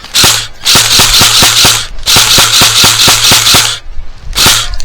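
Airsoft electric gun (AEG) firing on full auto in bursts: rapid clicking shots, about eight a second, over the low hum of its gearbox motor. There are three long bursts, then a short one near the end.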